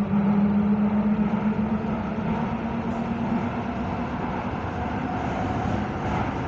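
Copenhagen Metro driverless train running through a tunnel, heard from inside the car: steady rumbling running noise with a low motor hum that rises slightly in pitch and fades over the first few seconds.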